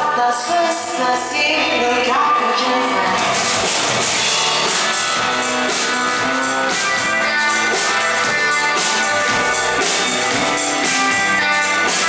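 Rock band playing live: electric guitars and a drum kit with steady cymbal hits coming in fully about three seconds in, and singing over them.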